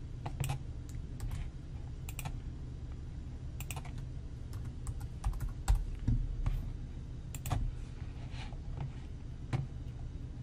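Typing on a computer keyboard: irregular keystrokes and clicks spread through the whole stretch, over a low steady hum.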